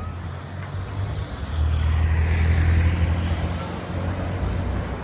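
A motor vehicle driving past, with a low engine hum and tyre noise that swell to their loudest about two to three seconds in, then fade.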